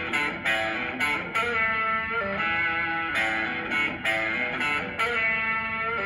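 Electric blues guitar, a Stratocaster-style instrument played through an amp, picking a repeating chord riff with a strike about every half second, between sung lines.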